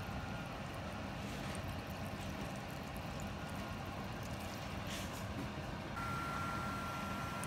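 Water poured from a jug into a stainless steel pan of sliced shiitake mushrooms, a steady rushing noise. About six seconds in, a steady high whine starts over the pan coming to a boil.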